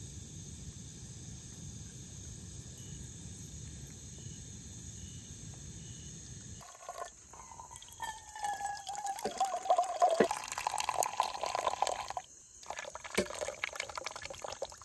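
A steady low rumble, then, about seven seconds in, hot milky coffee poured in a thin stream from a pot into steel tumblers and ceramic mugs, splashing, with a ringing tone as a cup fills; the pour breaks off briefly and starts again near the end.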